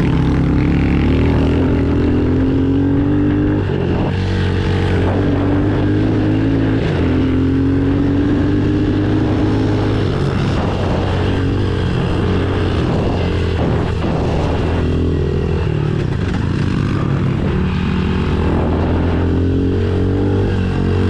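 Small pit bike engine running under way, revving up and easing off repeatedly with the throttle as the bike is ridden across grass.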